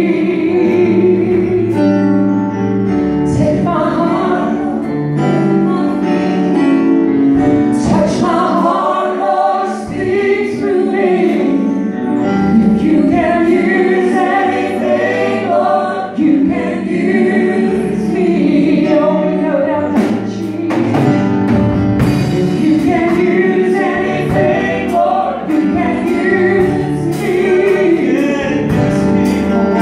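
Live gospel worship song: several women and a man singing into microphones over a band with drums, through a PA system.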